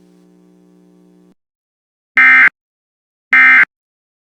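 Emergency Alert System digital data tones: two short, loud, identical bursts of screeching modem-like signal about a second apart. These are the end-of-message signal that closes an EAS alert. Before them a faint hum cuts off about a second in.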